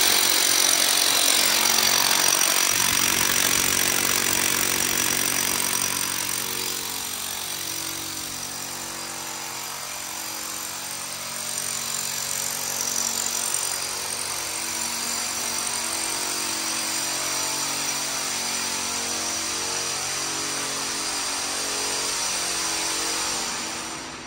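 A power tool running continuously with a steady high whine. It is loudest in the first few seconds and settles somewhat quieter after about six seconds.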